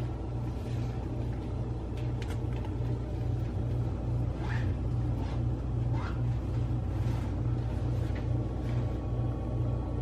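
A steady low machine hum with a regular throb, and two faint rising chirps about halfway through.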